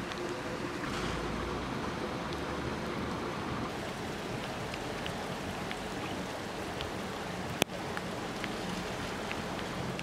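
Steady rush of running floodwater and rain, with scattered faint ticks and one sharp click about three-quarters of the way through.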